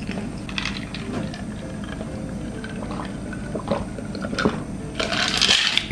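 A person gulping a drink from a plastic cup, with small clicks and swallowing sounds, ending in a breathy exhale near the end.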